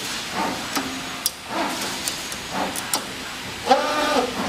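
CNC 2D wire bender running through its bending cycle: its servo motors give short whines that rise and fall in pitch with each move, about three or four moves, with sharp clicks from the bending head between them.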